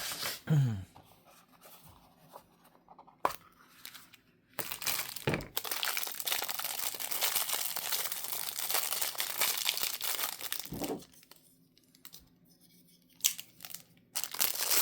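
Packaging crinkling and rustling as it is handled and opened, in one long stretch of about six seconds in the middle, with a few clicks and taps before and after.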